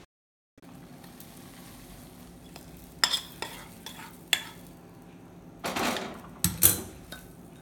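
Steel spoon scraping and clinking against a pan and a ceramic bowl as chilli-oil masala is scooped out of the pan, with a few sharp clinks and a longer scrape near the end.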